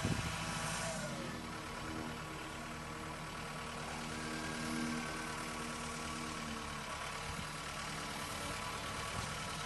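An engine running steadily at low speed with an even hum.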